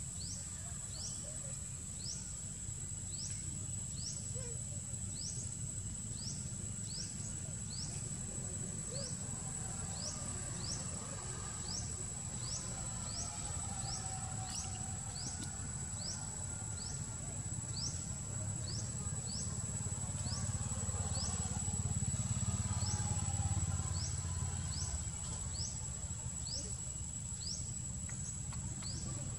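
Steady high-pitched insect drone, with a short rising chirp repeating about three times every two seconds, over a low rumble.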